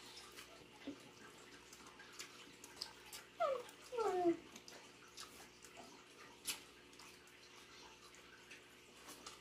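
Quiet eating sounds: faint wet smacks and small clicks of chewing and utensils. About three and a half seconds in, two short falling voice sounds, one after the other, stand out as the loudest thing.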